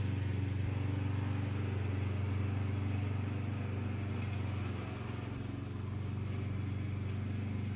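Lawn mower engine running at a steady pitch, slightly fainter from about five seconds in.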